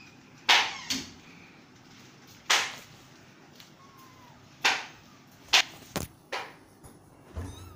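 A kitten hissing: seven or eight short, sharp hisses in irregular spurts, some close together.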